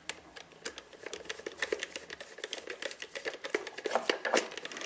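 Flat-head screwdriver turning a terminal screw to clamp a wire in a plastic electrical socket, giving a run of small, irregular clicks and scrapes.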